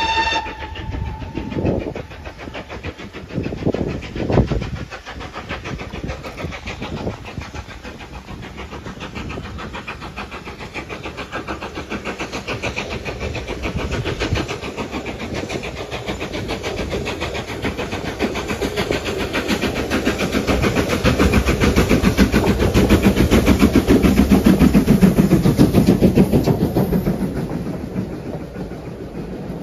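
The end of a steam locomotive whistle blast at the very start, then the locomotive working toward and past the listener, its rhythmic exhaust beats growing louder to a peak about three-quarters of the way through. Near the end, the coaches roll past on the rails and the sound falls away.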